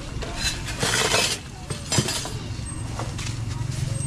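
Metal kitchen utensils clinking and scraping against pans and containers as street food is prepared and served. A few sharp clinks come through, the loudest about two seconds in, over a steady low hum.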